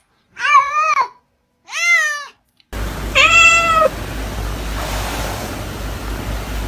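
Domestic cat meowing: two arching meows about a second apart, then a third meow with a steady hum and hiss behind it.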